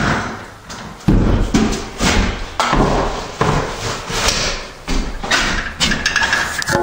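A run of knocks, thuds and scrapes: a heavy thud about a second in, then repeated sharp strokes every half second to a second.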